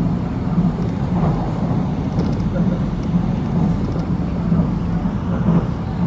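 Steady running rumble of a moving passenger train heard from inside the carriage, with a low hum that swells and fades.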